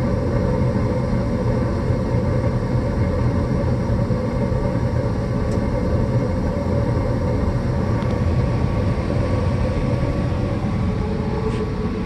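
Furnace running with a steady low rumble and hum, with a couple of faint ticks late on.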